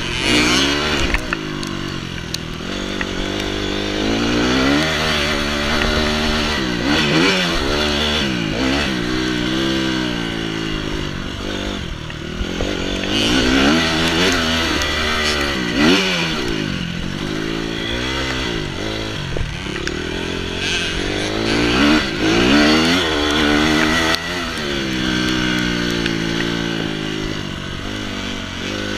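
Dirt bike engine being ridden hard, heard close up from the bike itself: the revs climb and drop back again and again as the rider accelerates, shifts and backs off around the track.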